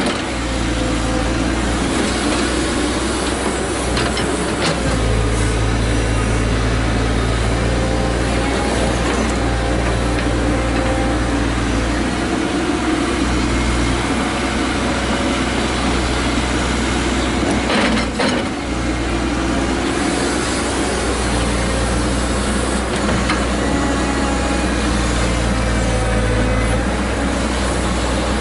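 Caterpillar 312C excavator's diesel engine running steadily under hydraulic load as the machine digs, swings and dumps, the engine note swelling and easing every few seconds. About two-thirds of the way through there is a brief knock.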